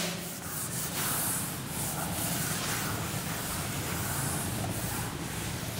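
Felt-tip marker strokes scratching on a whiteboard, faint and intermittent, about a second in and again around four seconds in, over a steady background hiss and low hum.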